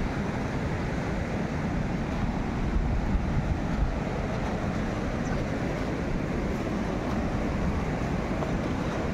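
Fast mountain river rushing over boulders, a steady even rush of water. Wind rumbles on the microphone underneath.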